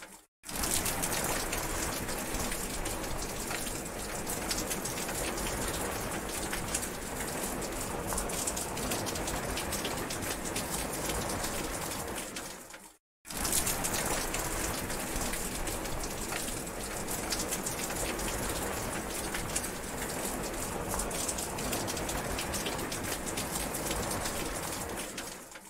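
Steady rain falling, a dense hiss of many drops at an even level, which cuts out to silence for a split second near the start and again about halfway through.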